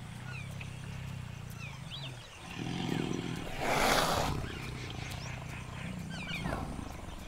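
Tiger growling low and steadily, with a louder, noisy snarl about four seconds in. Small birds chirp faintly in the background.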